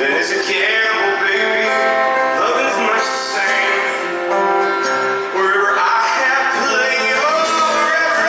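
Live rock band music, acoustic guitar with other instruments, and a gliding melody line over them.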